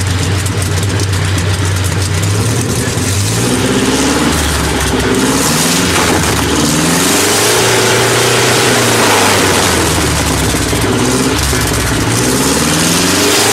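An engine idling steadily, then revved up and down several times from about three seconds in.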